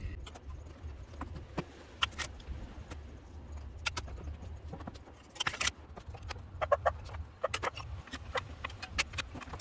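Scattered clicks, knocks and rattles of hand tools and parts being handled in a car's engine bay, with a few short squeaks, over a low steady hum.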